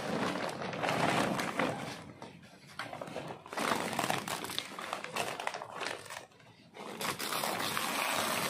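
Woven plastic sack rustling and crinkling as it is handled and pulled open, in three spells separated by short pauses.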